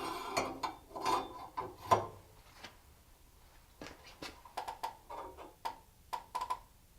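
KeyMod handguard being slid over an AR15 barrel onto the upper receiver: metal scraping and clinking for about the first two seconds, then a scattering of light metallic clicks and taps as it is seated and lined up.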